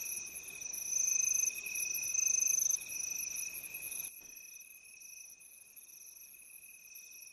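Night ambience of crickets trilling steadily, dropping to a lower level about four seconds in.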